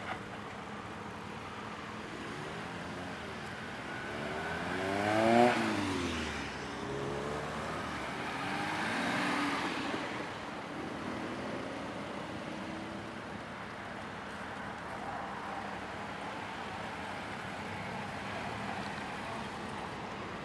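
Vintage cars driving past one after another on a street. The loudest passes close about five seconds in, its engine note rising and then falling as it goes by, and a second, fainter pass follows a few seconds later.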